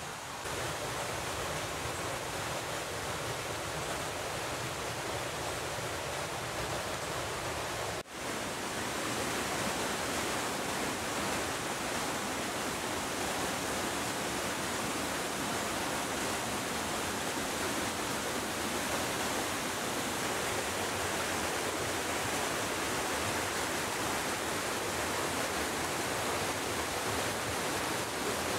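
Steady rushing of a mountain creek flowing over rocks, an even hiss with one brief dip about eight seconds in.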